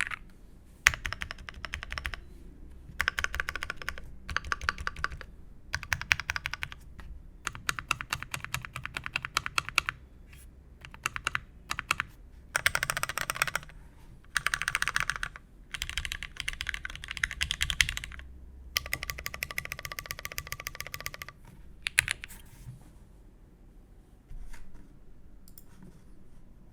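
Typing on an OTD 356.2 keyboard with vintage Cherry MX Black linear switches lubed with Krytox 205g0, on a polycarbonate half-plate, with G81-3100 dye-sub keycaps: fast runs of keystrokes in bursts of a second or few, with short pauses between them, tapering to a few faint clicks near the end.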